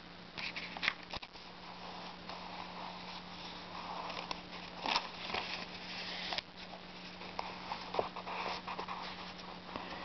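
Faint handling noises, small scattered clicks and rustles, over a steady low hum.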